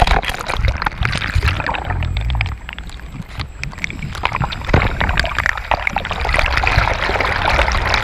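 Wind rumbling on the microphone over the hiss of running water, with scattered clicks and knocks. The sound dips briefly about two and a half seconds in.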